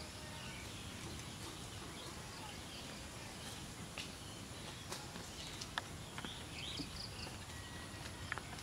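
Quiet woodland ambience: a steady soft hiss with faint, scattered bird chirps, and a few sharp clicks spread irregularly through the second half.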